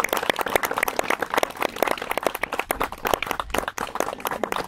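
A small crowd clapping: dense, irregular applause that keeps going without a break.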